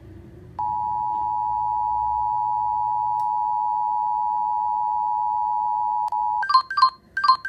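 Emergency Alert System two-tone attention signal: a steady pair of tones sounded together for about five and a half seconds, then cut off. A quick run of short paired beeps follows near the end.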